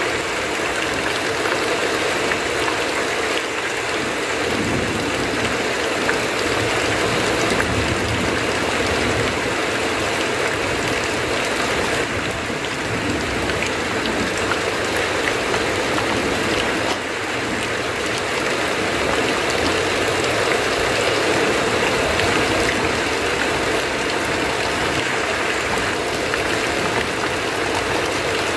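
Heavy rain falling steadily on a tin roof, with runoff pouring off the eaves.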